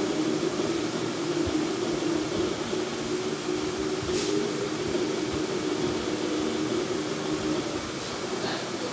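Soundtrack of a stadium football scene playing from a television's speakers: a steady, dense roar with a held low tone, without speech.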